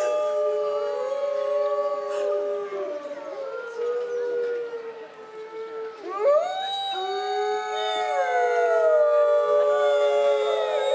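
A pack of Hudson Bay wolves howling together in chorus, several long howls at different pitches overlapping. The chorus thins out about five seconds in, then swells again with a steeply rising howl.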